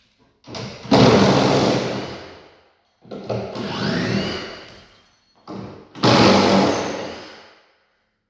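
A handheld power tool run in three bursts of about two seconds each, each starting suddenly and fading away.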